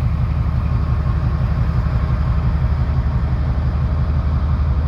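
Diesel locomotive engine running close up, a steady heavy low rumble with a fast, even pulse.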